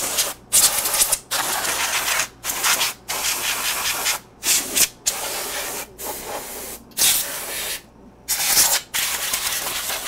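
Can of compressed air (air duster) spraying in a series of hissing bursts, about one a second with short breaks between them, as it blows dust out of the inside of a computer case.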